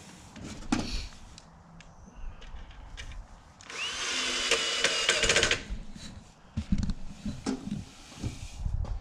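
Cordless drill-driver spinning up and running for about two seconds with a steady high whine, driving a screw into an aircraft propeller spinner. Knocks and clatter of tools being handled come before and after it.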